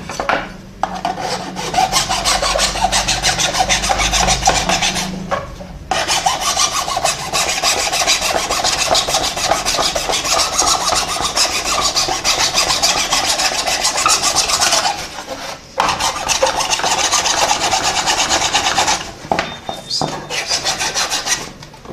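Hand file rasping over a plastic part, grinding down a lumpy repair of hardened super glue and baking soda. Fast back-and-forth strokes in long runs, broken by a few short pauses.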